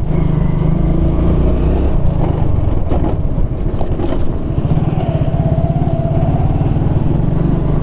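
Motorcycle engine running as the bike is ridden slowly over a rough, potholed dirt road, heard from the rider's seat, with a few knocks around three to four seconds in.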